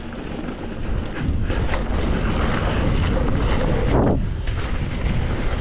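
Wind buffeting the microphone as a mountain bike rolls fast down a dirt trail, with rumble and scattered knocks from the bike over the ground. A short falling sound comes about four seconds in.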